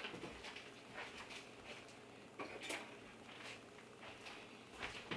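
Avocado oil heating in a cast iron Dutch oven, giving faint, scattered ticks and crackles, with a few sharper pops about half a second in, around two and a half seconds, and near the end.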